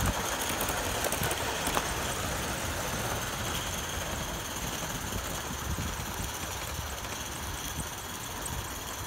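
Accucraft Dolgoch 16mm-scale live-steam locomotive running steadily along the track, its steam exhaust chuffing and its wheels clicking on the rails.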